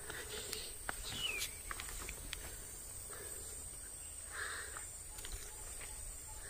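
Steady high-pitched insect drone, with scattered light clicks and a short falling whistle about a second in.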